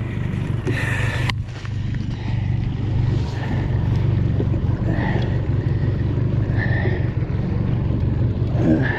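Small skiff's outboard motor running steadily at low speed, with brief high squeaks every couple of seconds and a short burst of hiss about a second in.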